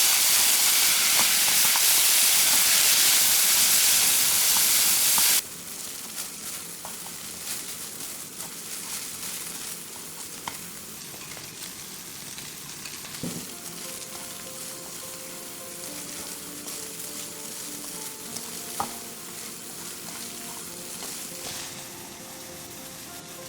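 Food sizzling loudly in hot oil in a pan for about five seconds, then cutting off abruptly to a quieter crackling fry with occasional clinks of stirring. Soft music comes in about halfway through.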